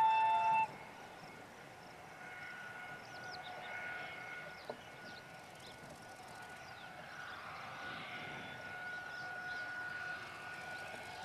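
A diesel locomotive's horn cuts off about half a second in. After it comes a faint, steady high whine that slowly swells, with small high chirps over it.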